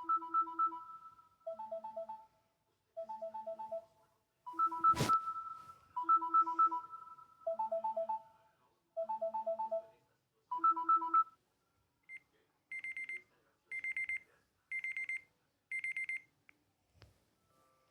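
LG K22 smartphone ringtones: a looping melody of fast trilled electronic notes, alternating a higher and a lower phrase, with a sharp click about five seconds in. After a short pause a different tone starts: four high pulsing beeps about a second apart.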